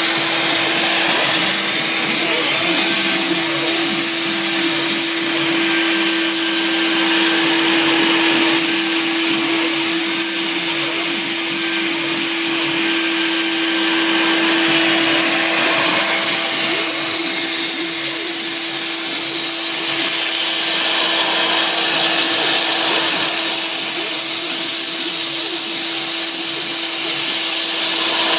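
Sieg SX2 mini milling machine running under CNC control, its spindle spinning a 6 mm cutter through a hardwood block. A steady whine with a constant hum, and a cutting hiss that swells and eases as the cut goes on.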